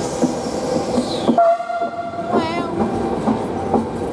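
Trenord passenger coaches rolling past, their wheels clacking rhythmically over the rail joints. A brief shrill tone sounds about halfway through.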